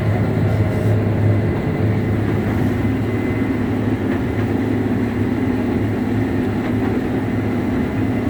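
Case IH 7120 combine running steadily while picking up and threshing swathed canola: a constant engine and machinery drone with a faint high whine over it.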